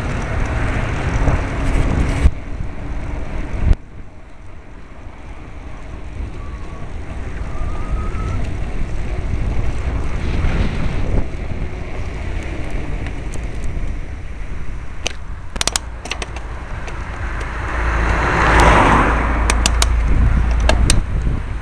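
Wind rushing over a bicycle-mounted camera's microphone, mixed with road traffic noise while riding. The noise drops suddenly about four seconds in and swells again near the end, with a few sharp clicks in the second half.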